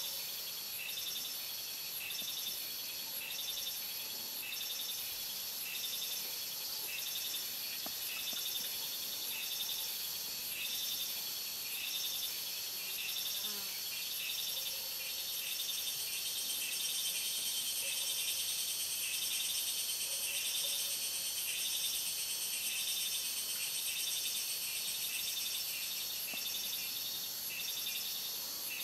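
Steady chorus of many forest insects, a high-pitched shrill buzzing from several overlapping singers that grows slightly louder a little over halfway through.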